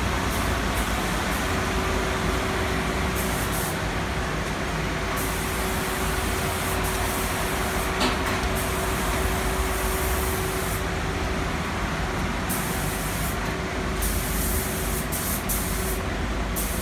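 Steady workshop machinery hum with hissing that switches on and off every second or two, and a single sharp click about halfway through.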